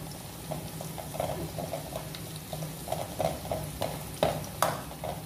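Metal spatula scraping and stirring crushed garlic frying in oil in a stainless steel pan, with light sizzling; the garlic is being toasted toward golden brown. Two sharp clinks of metal on the pan come a little after four seconds in.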